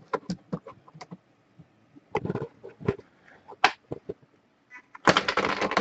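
Scattered light clicks and taps, then about five seconds in a rapid clattering starts: a chip dropping and bouncing down through the pegs of a Plinko board.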